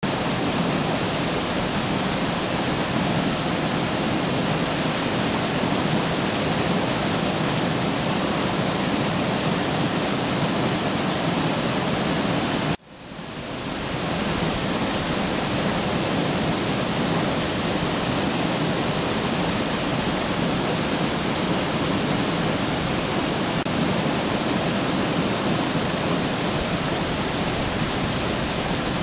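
Water of a small river pouring over a weir: a steady, even rushing of falling and churning water. It cuts out suddenly about thirteen seconds in and swells back within a second.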